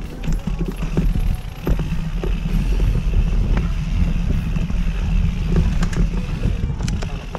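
Mountain bike riding a dirt trail, heard from an action camera: a steady low rumble of wind and tyre noise on the microphone, with scattered clicks and rattles from the bike.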